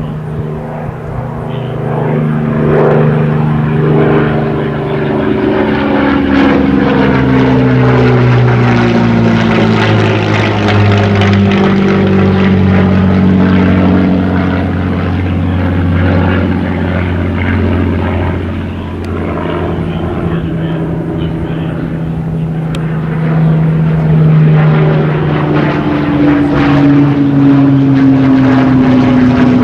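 Merlin-engined Second World War propeller fighter flying low past, its engine drone sliding down in pitch as it goes by, with another pass starting to drop in pitch near the end.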